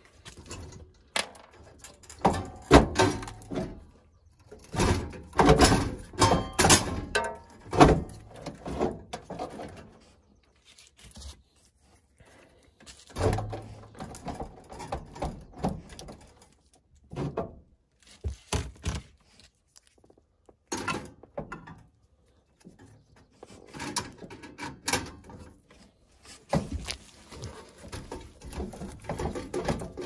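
Irregular metallic clanks, knocks and rattles of hand work in a gas furnace's burner compartment as the gas manifold and burners are being taken out, in bursts with short pauses between them.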